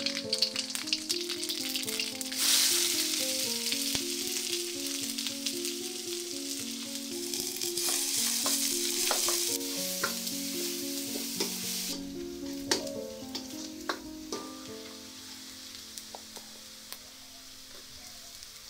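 Food frying in hot oil, with the clicks and scrapes of a utensil stirring it. The sizzle is loudest from about two and a half seconds in and dies down about twelve seconds in.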